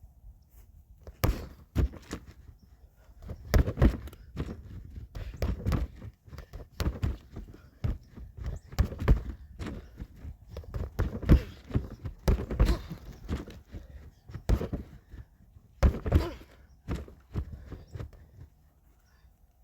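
An irregular series of knocks and thumps, some coming in quick clusters, dying down near the end.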